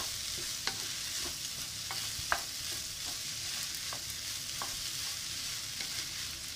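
Fried rice sizzling in a nonstick frying pan as a wooden spatula stirs and tosses it, with light taps of the spatula against the pan about once a second, the sharpest one a little over two seconds in.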